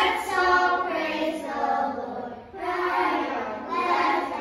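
A class of young children singing together in unison, in short phrases.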